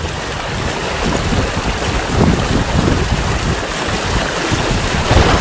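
Heavy rainstorm: a steady rushing of rain with gusts of wind buffeting the microphone.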